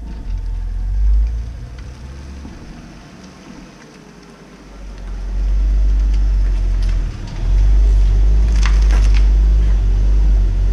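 Hyundai Tiburon coupe driving up and pulling into a driveway on wet pavement: a low engine and exhaust rumble, quieter at first, swells to loud about five seconds in as the car comes up close, with a few short crackles near the end.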